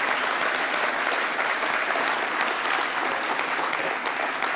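Audience applauding: many hands clapping at once in a dense, even clatter that eases slightly near the end.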